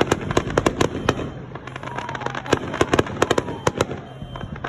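Fireworks going off close by: rapid sharp cracks and pops in two quick clusters, one at the start and one in the second half, with a faint falling whistle between them.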